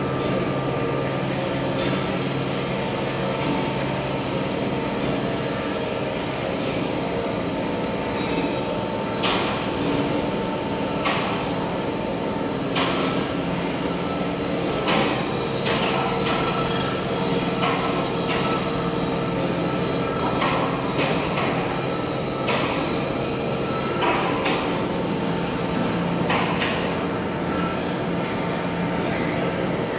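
Large heavy-duty lathe running under a cut on a big metal roll: a steady hum from the motor and gearing, with irregular sharp metallic clinks from about nine seconds on.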